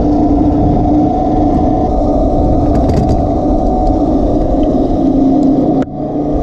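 Engine of harvest machinery running steadily with a constant low hum. The sound drops out sharply for a moment near the end, then picks back up.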